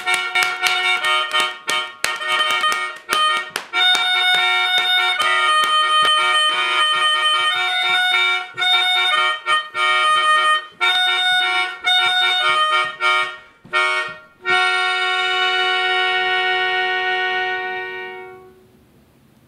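Melodica played in a quick run of short notes and chords, with many sharp clicks among them. About three-quarters of the way through it settles on one long held chord that fades out near the end.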